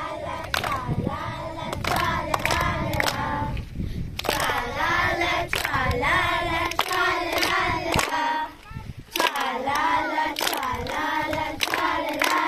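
A group of young girls singing a song together in unison and clapping along in time, with a short break in the singing about two thirds of the way through.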